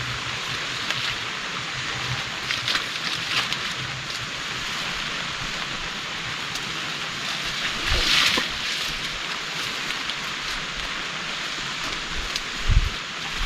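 Heavy rain falling steadily as a dense hiss, with a louder rush about eight seconds in and a short low thump near the end.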